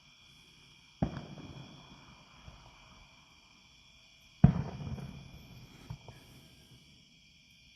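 Distant fireworks shells bursting: a sharp boom about a second in and a louder one about four and a half seconds in, each trailing off in a rumbling echo, with a few fainter pops after them. Crickets trill steadily behind.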